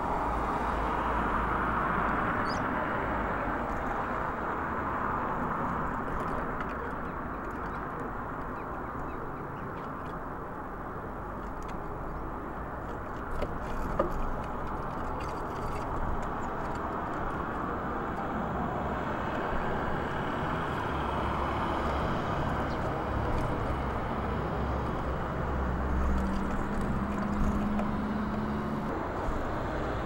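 Steady rumble of distant road traffic, with a few short taps in the middle and near the end as birds land and peck on the wooden feeder. A low hum from a passing vehicle comes in near the end.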